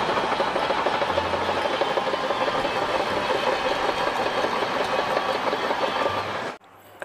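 Shantui crawler bulldozer with its diesel engine running and steel tracks clattering as it pushes sand with its blade. The sound stops abruptly near the end.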